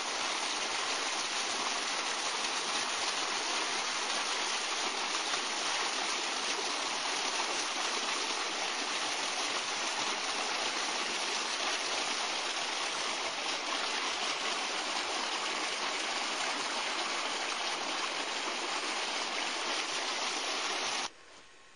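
Water pouring steadily over a stone edge into a pond, a constant rush of running water that cuts off abruptly near the end.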